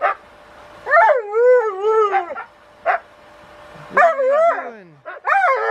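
Husky-type dog vocalizing in three or four long, wavering howl-like calls that rise and fall in pitch. The longest comes about a second in, a short yip follows near three seconds, and two more calls come near the end.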